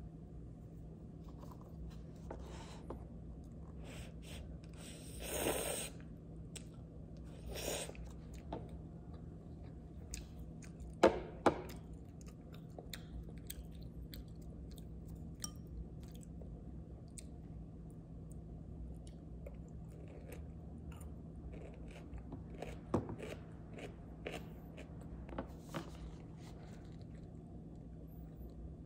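Close-up eating sounds: quiet chewing and crunching of ponytail radish kimchi and noodles, with a few sharp clicks of wooden chopsticks against a paper noodle cup. The loudest two clicks come close together about eleven seconds in, over a steady low room hum.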